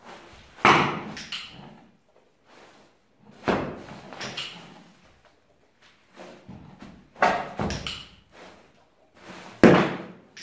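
Four sharp bangs a few seconds apart, each dying away in the hall's echo. Each of the first three is followed within a second by the short click of a training clicker, marking the horse for staying calm at the bang.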